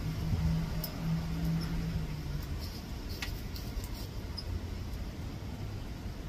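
A knife scraping bark from a ringed atemoya branch: a few light clicks and scrapes around the middle, over a low steady rumble. A low hum runs through the first couple of seconds, and short high chirps come now and then.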